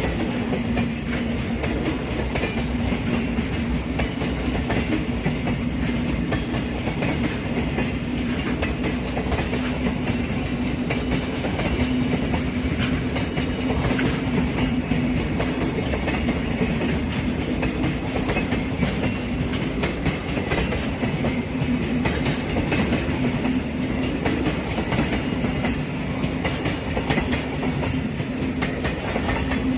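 Freight train running steadily past, its wagons' wheels clattering over the rail joints, with a steady low hum underneath.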